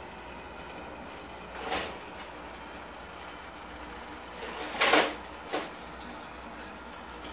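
Steady hum and water rush of a reef aquarium's pumps, running continuously. Three short bursts of noise break through: one about two seconds in, the loudest about five seconds in, and a smaller one just after it.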